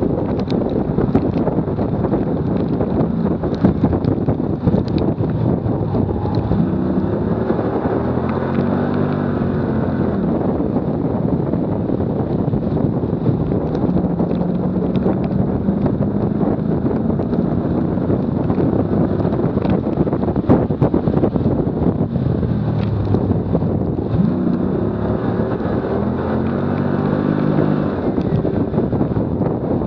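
Strong wind noise on a bumper-mounted camera's microphone over the roar of tyres on track asphalt at speed. The car's engine note comes through several times, rising and falling in pitch, with a steadier held tone in the middle.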